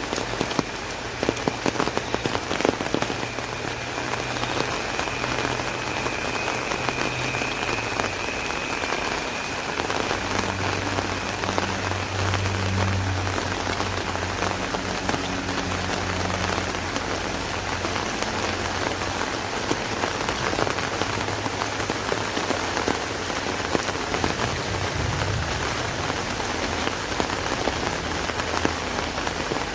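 Rain falling on an umbrella, a dense steady patter, with sharp single drops standing out in the first few seconds. A low steady hum sits underneath from about ten seconds in until around twenty.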